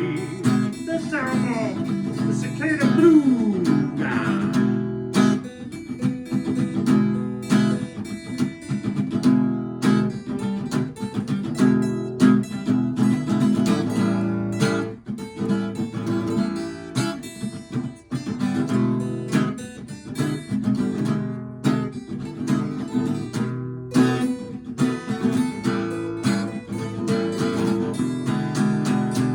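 Blues music on a strummed acoustic guitar, played without singing, with a few sliding, bending notes in the first few seconds.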